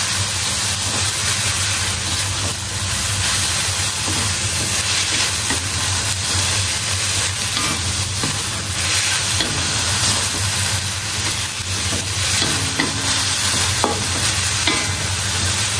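Bean sprouts sizzling in a hot pan as they are stir-fried in oyster sauce, a spatula stirring through them, with a few light knocks of the spatula in the last few seconds.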